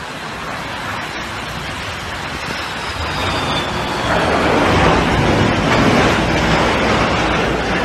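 Jet airliner engine noise from a landing Airbus A330, steady at first and growing louder about four seconds in, around touchdown, as reverse thrust is applied.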